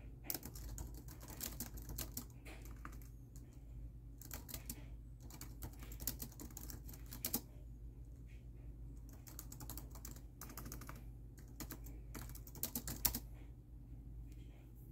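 Fast typing on a laptop keyboard: three runs of rapid keystrokes with short pauses between them, stopping a little before the end.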